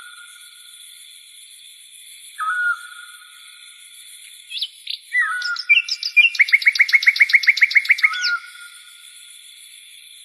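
Birds calling: a short flicked note repeated about every three seconds, and a fast trill of about ten notes a second lasting about two seconds near the middle, over a steady high-pitched drone.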